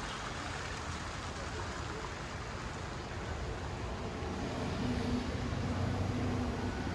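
Steady outdoor rushing noise, with a vehicle engine humming in from about four seconds in and growing a little louder.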